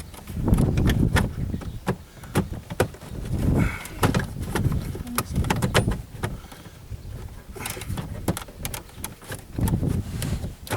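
Irregular clicks, knocks and rustling of hands working plastic dash trim and a headlight switch into place under a car's dashboard.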